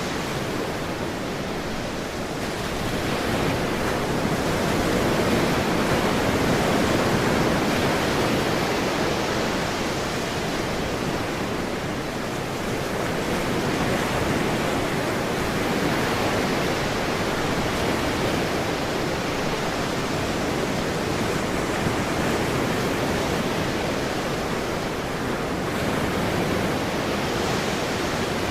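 Ocean waves washing on a shore: a continuous hiss of surf that swells and eases every few seconds.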